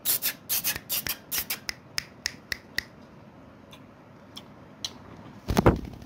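Ringneck parrot's beak scraping and clicking at a bedsheet. A quick run of sharp clicks, about four a second, fades out after about three seconds, and a few faint clicks follow. One louder thump comes near the end.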